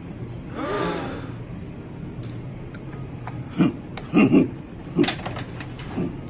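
A man spits into the open neck of a plastic jug of iced tea: a short breathy, throaty burst about half a second in. Then come a few short chuckles and faint clicks as he screws the cap back on.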